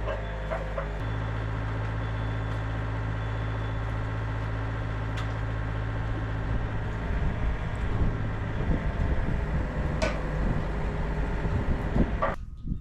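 Yanmar VIO50 mini excavator's diesel engine running steadily, turning rougher and uneven with irregular low knocks from about seven seconds in as the machine works, then dropping off sharply near the end.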